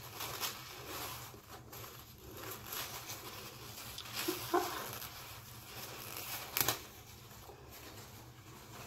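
Rustling and scratchy handling noises as a cloth cap is pulled and adjusted over braided hair, with one sharp knock a little past halfway.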